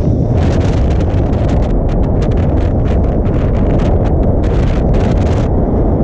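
Gale-force wind of 40-plus mph battering the microphone with a loud, constant low rumble, while tent fabric flaps and rattles in rapid, irregular bursts.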